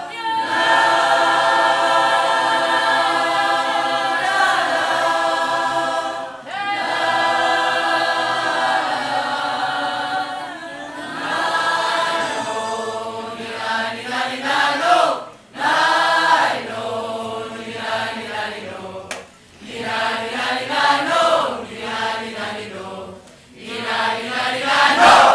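A choir of mixed voices singing. For the first ten seconds or so it holds long chords, with short breaks about four and six seconds in. After that it sings shorter phrases whose pitch rises, falls and wavers, with brief gaps between them.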